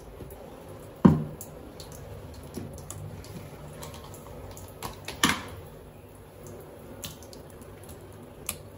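Kitchen handling sounds: a sharp knock about a second in and another just past five seconds, with scattered light clicks and wet drips over a low steady hum.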